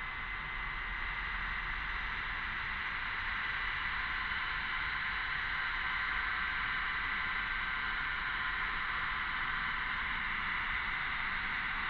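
A cicada chorus: a steady, dense, high-pitched drone that grows a little louder over the first few seconds and then holds.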